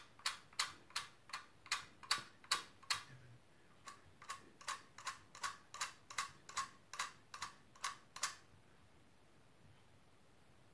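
Pen drawing quick short marks on a melodeon's bass-button levers: a run of short scratchy strokes, about three a second. They stop about three seconds in and start again about a second later, ending around eight seconds in.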